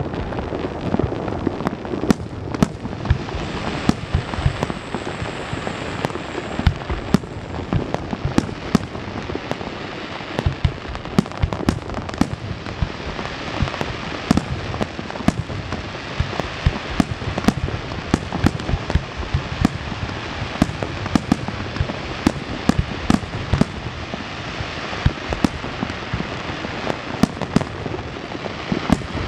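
Aerial fireworks display: many sharp bangs from bursting shells, several a second, over a dense continuous crackling like heavy rain.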